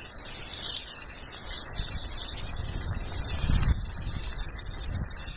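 Campfire hissing steadily, with a low rumble swelling and fading about three and a half seconds in.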